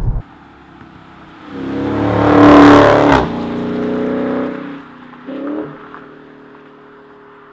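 A 2016 Dodge Charger R/T Scat Pack's 6.4-litre (392) Hemi V8 accelerating hard away, its exhaust rising in revs and loudness before dropping abruptly about three seconds in. It then runs on at a lower, steady level, with one short burst of throttle near five seconds before fading out.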